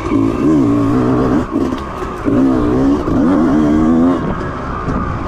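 Honda CRE 250 enduro bike's two-stroke single-cylinder engine revving under throttle, its pitch rising and falling. Two loud pulls of throttle with a brief let-off about a second and a half in, then it eases off after about four seconds.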